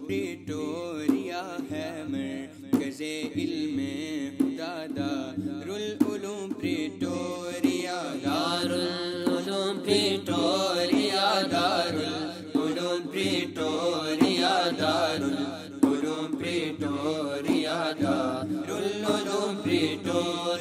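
Voices chanting a devotional nasheed, a melodic sung chant that carries on without a break.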